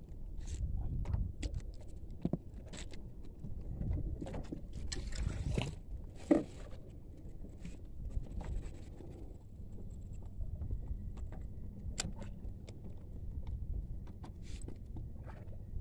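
Low rumble of wind and water around a small boat, with scattered clicks and knocks from handling a fishing rod and spinning reel; the loudest knock comes about six seconds in.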